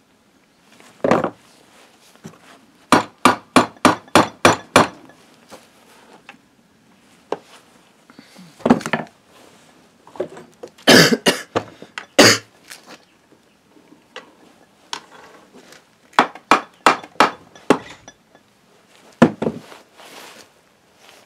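A mallet striking the aluminium crankcase of a Yamaha YBR 125 engine to seat its two halves together, in short runs of quick blows, about four a second.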